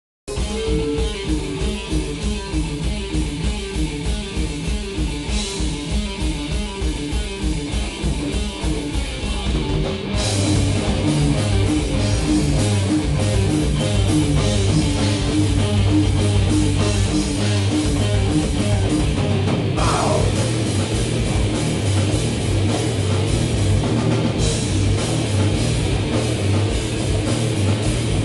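Live hardcore/metal band playing distorted electric guitars and drums. A fast, even low pulse carries the first ten seconds, then the band comes in louder and fuller about ten seconds in.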